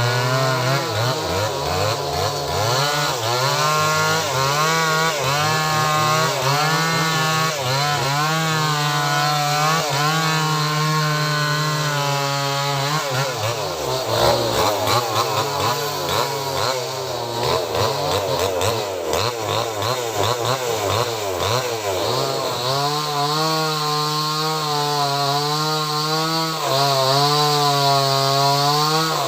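Small two-stroke chainsaw cutting through a very large tree trunk. The engine's pitch wavers as it takes load in the cut, dropping lower and rougher for several seconds around the middle before picking back up.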